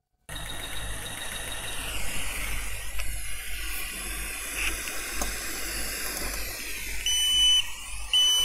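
Hot air rework gun blowing a steady hiss onto an iPhone 13 logic board, heating it to separate the sandwiched board. Near the end come two short, high electronic beeps.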